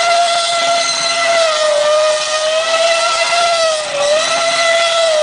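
Red Bull Formula 1 car's Cosworth engine held at high revs through a smoky burnout, its rear tyres spinning on the asphalt. The pitch stays steady and high, wavering slightly and dipping briefly about two seconds and again about four seconds in.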